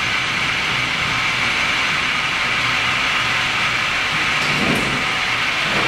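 Clausing 6329 metal engine lathe running under its 220 V three-phase motor, a steady mechanical whir with a brief low swell about three-quarters of the way through.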